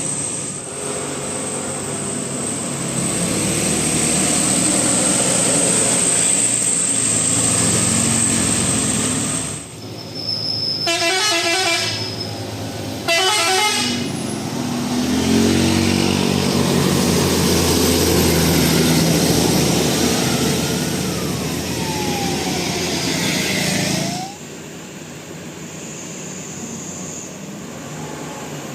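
Multi-tone 'telolet basuri' bus horns playing melodies over running bus engines, with two quick warbling trills around eleven and thirteen seconds in. The horns stop about 24 seconds in, leaving quieter engine and traffic noise.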